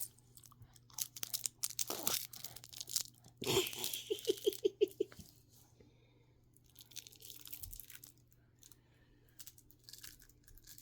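A handheld baby shaker toy being shaken and handled, giving scattered crunchy rattles and crinkling. About four seconds in there is a quick run of about seven short pitched sounds, then fainter rustling.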